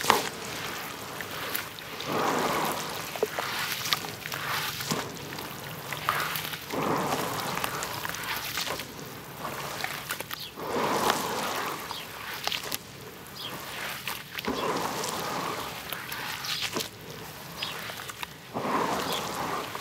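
Hands squeezing and swishing red dirt through water, making wet squelching and sloshing in swells about every four seconds, with small clicks between.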